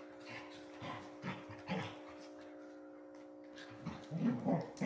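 Excited pet dogs making short yips and snuffles, then a whine that slides up and down near the end, over a steady hum.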